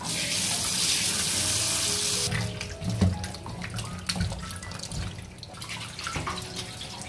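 Kitchen tap running into a steel bowl of cut ash gourd pieces in a stainless steel sink, as hands slosh and rub the pieces clean. The water is loud for about the first two seconds, then drops to a quieter trickle with splashes and a few knocks against the bowl.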